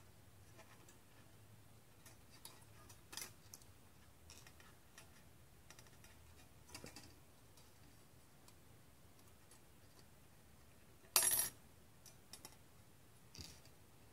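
Scattered soft clicks and ticks of thin sheet-metal model pieces being handled and worked in the fingers, with a louder short metallic clatter about eleven seconds in.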